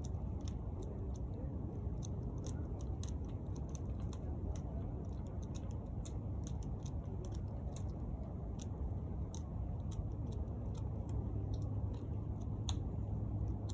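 Hand pruning shears snipping dormant grapevine canes: irregular sharp, thin clicks a few times a second. They sound over a steady low rumble of wind on the microphone.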